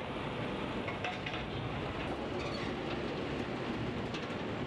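Heavy lorry with a container trailer running and rolling slowly past, a steady engine and road rumble with a few short clanks and rattles from the trailer.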